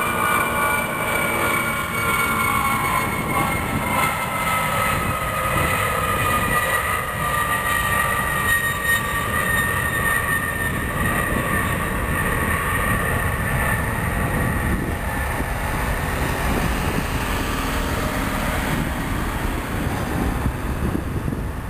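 Lockheed C-5A Galaxy's four General Electric TF39 turbofans at climb power after a touch and go: a steady roar with a high whine that slowly falls in pitch as the aircraft climbs away, growing a little fainter toward the end.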